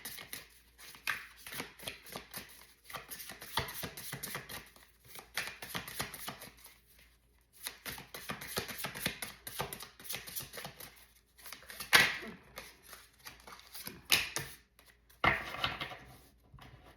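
A deck of tarot cards being shuffled by hand: a run of quick, crisp card flicks and rustles, with a few louder swishes in the last few seconds.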